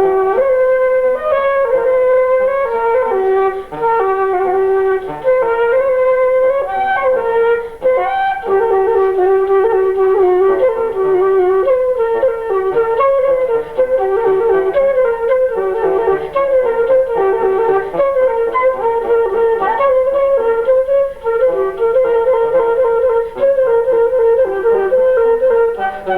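Flute-type woodwind playing a lively melody of short notes that step up and down in a fairly narrow middle range.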